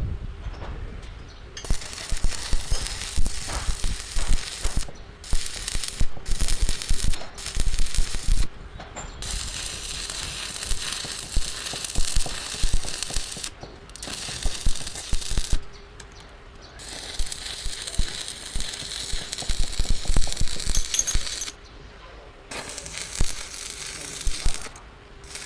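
Metalworking noise: a crackling hiss that starts and stops abruptly several times, with sharp metallic clinks and knocks in between.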